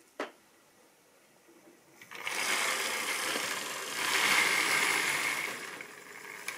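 OO-gauge model train running on sectional track: the locomotive's small electric motor whirring and the wheels rattling over the rails. It starts about two seconds in, after a single click, and is loudest about four seconds in.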